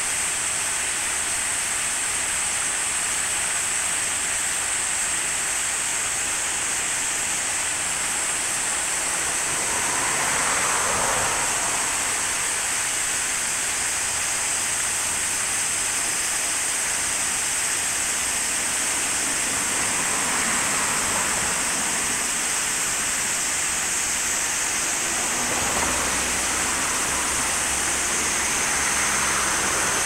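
Water spilling steadily over a series of low concrete weirs in a small river: a continuous rushing. A low rumble joins in near the end.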